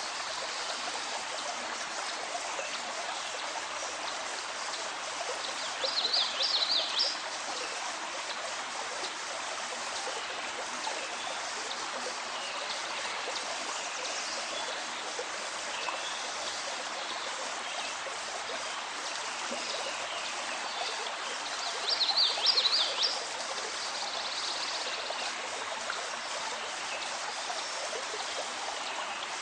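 Steady rushing of a running stream in a nature recording, with a brief, loud high-pitched call rising over it twice, about six seconds in and again some sixteen seconds later.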